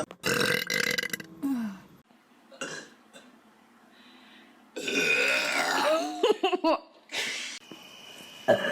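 People burping loudly, in separate burps: one lasting over a second near the start, and a longer one in the middle that bends in pitch toward its end.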